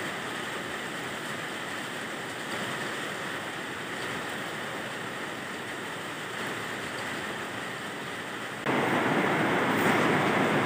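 Steady rushing background noise with no distinct events, stepping up louder about nine seconds in.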